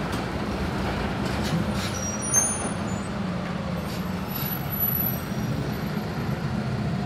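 Steady city street traffic, a continuous rumble of vehicle engines with a low hum underneath. A single sharp knock sounds about two and a half seconds in.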